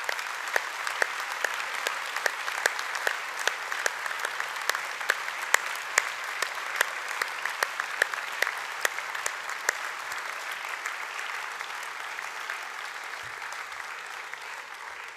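An audience of students applauding steadily, a dense wash of hand claps with some louder individual claps standing out, fading away at the end.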